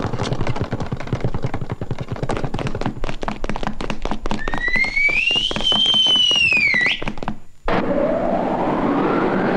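Cartoon sound effects: a fast clatter of thuds and taps as the mice scramble away, with a whistle that rises and then falls partway through. After a brief break near the end, a rising swell of noise comes in.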